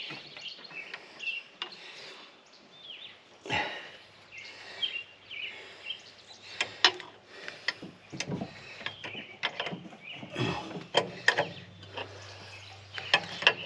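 Birds chirping, over scattered sharp clicks and taps of hand tools on metal compressor fittings. A faint low steady hum comes in about four seconds in.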